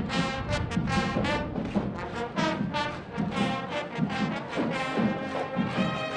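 Brass band playing a tune, one separate note after another, with trombones and trumpets.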